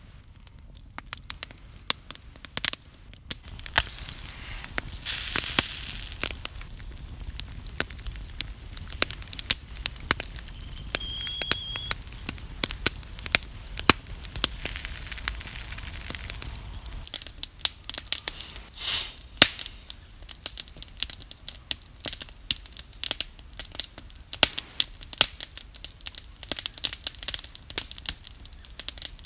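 Wood campfire crackling and popping with a steady run of sharp snaps, broken by a few short spells of hissing.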